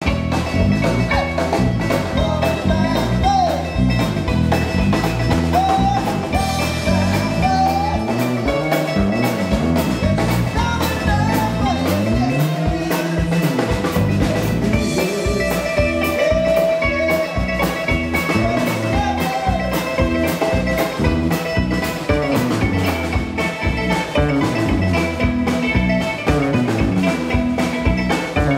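Live band playing: electric bass, drum kit and mandolin, with a steady drum beat under a mandolin melody.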